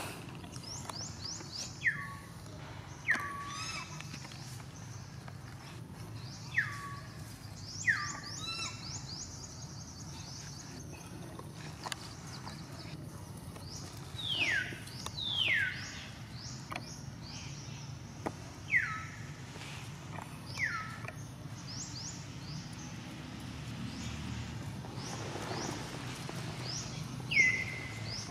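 Short, high whistled animal calls that slide sharply down in pitch, about a dozen scattered through, the loudest near the middle and near the end, over steady high chirping and outdoor background noise.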